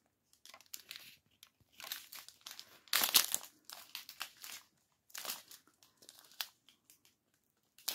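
Small clear plastic zip bag of diamond-painting drills crinkling and rustling as it is handled, in short irregular bursts, loudest about three seconds in.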